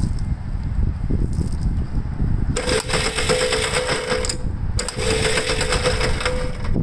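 Electric starter of a 1962 Gravely LI walk-behind tractor cranking in two bursts of about two seconds each, a steady whine with rapid clatter, with a short break between; the engine does not catch. Before it, a low wind rumble on the microphone.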